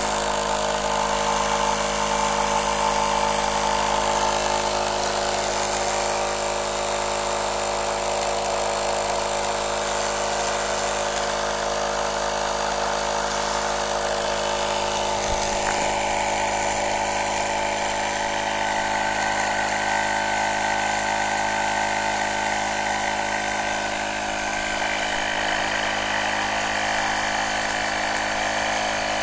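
A 12 V home-built air compressor made from a refrigerator compressor, running steadily with an even mechanical hum. A small click and a slight change in its tone come about halfway through.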